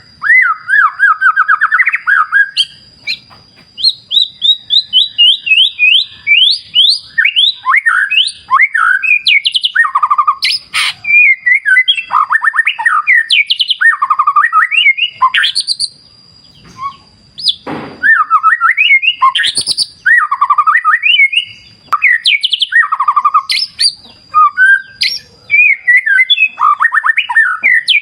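White-rumped shama (murai batu) singing a long, varied song of rapid whistled phrases and trills, with a brief pause about halfway through. A thin steady high whine runs underneath.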